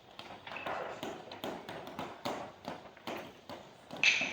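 Hammering: steady sharp taps about two a second, like a hammer striking wood. Near the end the strikes turn much louder and ring.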